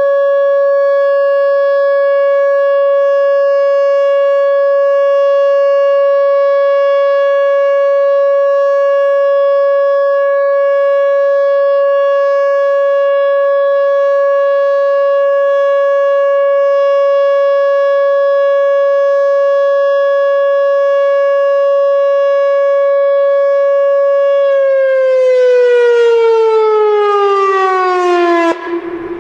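Whelen Omni-Alert OA4 electronic outdoor warning siren sounding its steady Full Alert tone. Near the end the pitch glides down as the siren winds down, then it cuts off abruptly.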